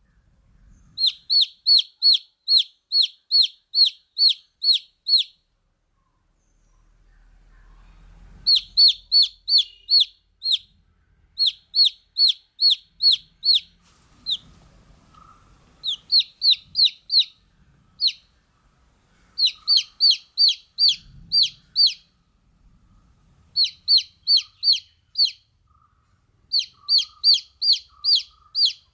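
Baby chicks peeping: high, downward-sliding peeps repeated about two to three a second in runs, with short pauses between the runs.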